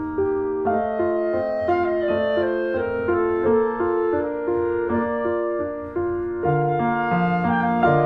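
Background music: a keyboard melody of clear, evenly paced notes changing every fraction of a second.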